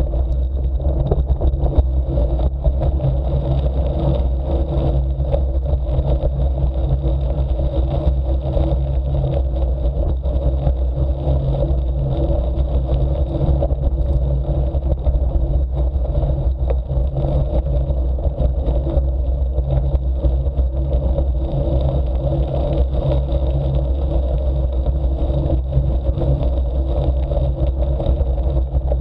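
Steady wind rumble on the camera microphone, with the crunch and clatter of a bicycle's knobby tyres rolling over a gravel track at about 20 km/h.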